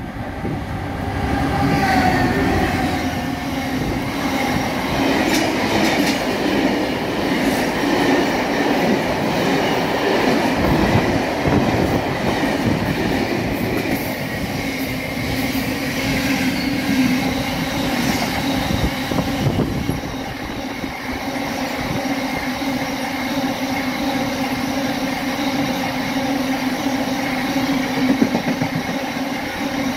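A Class 59 and Class 66 diesel locomotive pair on a stone train passes at speed in the first seconds. After them comes a long, continuous rumble and rhythmic clatter of the empty aggregate hopper and box wagons running over the rail joints, with a steady low drone of the wheels.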